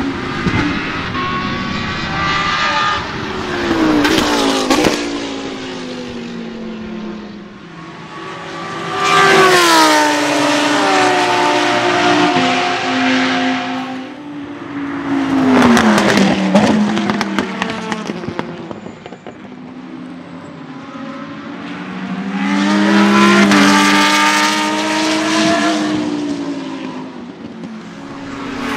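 Lamborghini Huracán Super Trofeo race car's 5.2-litre naturally aspirated V10 at high revs, its pitch climbing and falling again and again. It swells to four loud surges between quieter stretches.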